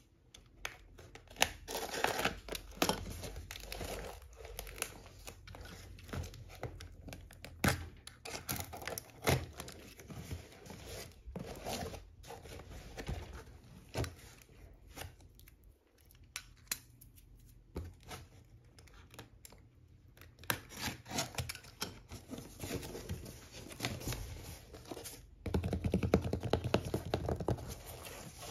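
Packing tape on a cardboard shipping box being slit with a small box cutter and torn, with cardboard crinkling, scraping and clicking. Near the end, a louder stretch of cardboard rubbing as the box flaps are pulled open.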